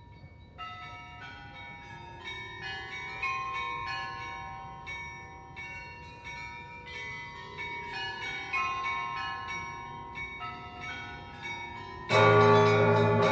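Orthodox church bells ringing a festive peal: small high-pitched bells struck in a quick, rhythmic pattern, each stroke ringing on. About twelve seconds in, a large deep bell and the fuller set come in, much louder.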